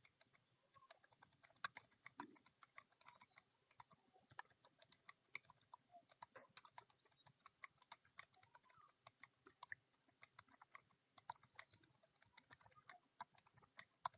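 Fast, continuous typing on a computer keyboard, faint key clicks coming several a second in an uneven stream, at about 64 words a minute during a timed typing test.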